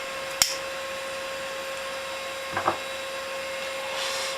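Desktop computer running, its fan giving a steady hum with a constant whine, broken by a sharp click about half a second in and a duller knock about two and a half seconds in.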